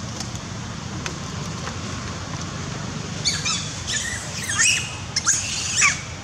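A run of high-pitched chirping animal calls, some gliding downward, starting about three seconds in, over a steady low rumble.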